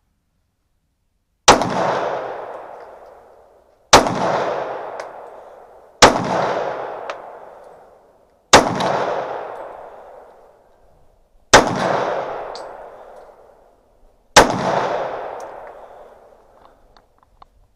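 Six shots from a Smith & Wesson .40-calibre pistol, fired slowly two to three seconds apart. Each shot is followed by an echo that dies away over about two seconds.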